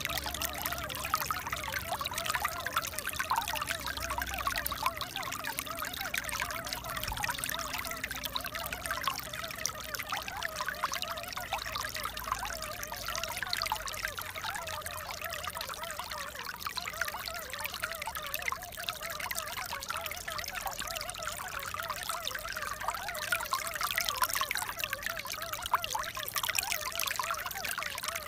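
Water pouring and trickling, a steady unbroken splashing flow.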